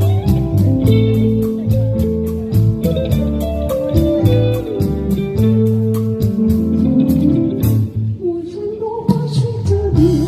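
Instrumental band intro: guitar melody over a bass line and a steady beat. Near the end the beat drops out for about two seconds under a sliding guitar phrase, then comes back in.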